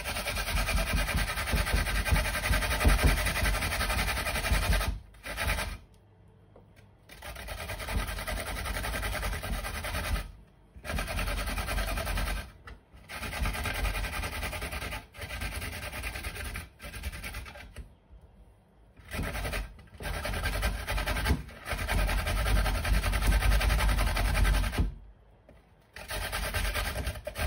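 Fresh ginger being grated on a metal hand grater: a steady rasping scrape, in runs of a few seconds with short pauses between them.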